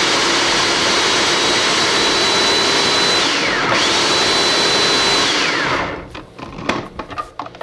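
Hamilton Beach food processor motor running at full speed, mincing garlic cloves: a loud, steady high whine that sags briefly a little past halfway and picks back up, then winds down and stops about six seconds in. A few light knocks follow near the end.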